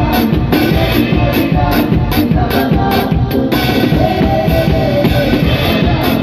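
Live band music led by a drum kit played with sticks: a driving beat with cymbals struck about twice a second, then a continuous cymbal wash through the second half, over sustained notes from other instruments.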